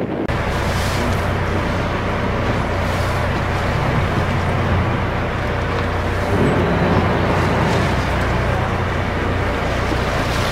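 Whale-watching boat's engine running steadily, a constant low drone.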